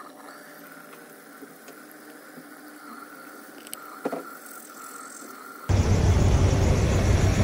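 A faint steady hum with a couple of small clicks. Near the end it switches abruptly to the loud, steady rumble of idling semi-truck diesel engines parked close by.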